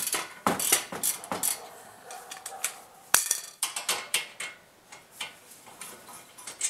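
Breaker bar and socket working an 18 mm caliper bracket bolt loose on a 2008 Honda Civic's front brake: irregular metallic clicks and clinks, with one sharp knock about three seconds in.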